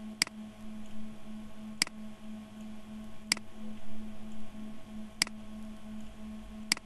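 Computer mouse clicking, five sharp clicks spaced about one to two seconds apart, over a steady low hum.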